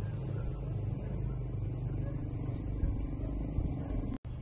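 A steady low rumble of outdoor background noise, cutting out for a moment near the end.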